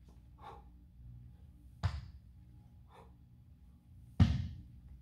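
A kettlebell thudding twice during clean reps, about two seconds in and, louder, near the end as the bell is set down on the gym floor. Faint breaths come in between.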